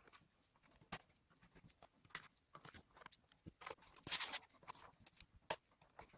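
Faint scattered clicks and taps of a Dell XPS 15's bottom cover being fitted and pressed into place, with a short, louder rustle about four seconds in.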